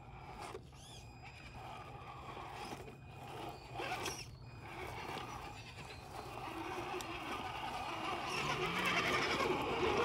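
Scale RC rock crawler's small electric motor and geared drivetrain whirring as the truck crawls down rock ledges, growing louder toward the end.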